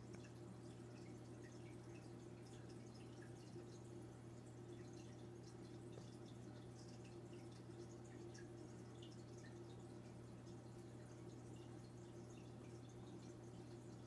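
Faint aquarium water sounds: small drips and bubbles ticking over a steady low hum from the tank's running equipment.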